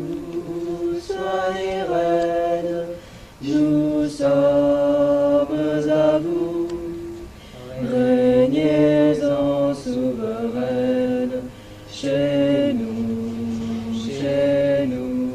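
A slow devotional song in French: voices hold long notes in phrases, with short pauses between them, over a steady low drone.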